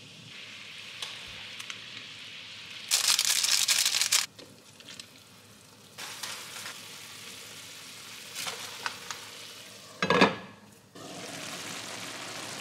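Cooking on a gas stove: rice cakes boiling in water, then instant noodles and rice cakes simmering in spicy broth in a frying pan, a steady bubbling sizzle. The sound jumps between shots, with a louder burst of sizzling about three seconds in and a short, louder noise about ten seconds in.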